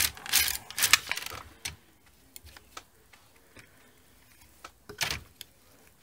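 LK150 plastic-bed knitting machine: the carriage rattles to the end of its pass in the first second. Then come scattered light clicks of plastic needle butts being slid back by hand, with a louder rattle about five seconds in.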